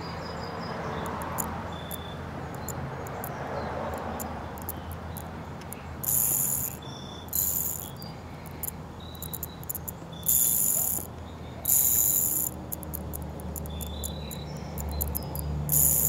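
Stainless steel and zirconium magnetic fidget spinner ring being spun and rolled on a finger, with many light clicks as its magnets catch. Several short bursts of a high shrill buzz come through at intervals.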